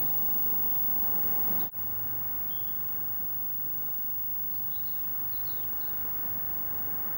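Renfe series 313 diesel-electric locomotive running with a steady low hum, broken by a brief dropout a little under two seconds in. Small birds chirp several times after the dropout.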